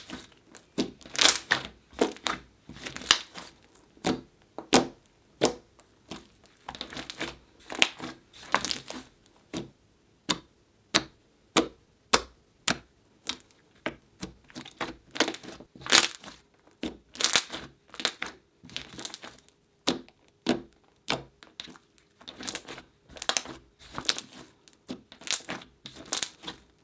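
Hands squeezing, folding and pressing a soft, glossy slime, each squeeze setting off sharp air-bubble pops and crackles in irregular clusters about every second or two.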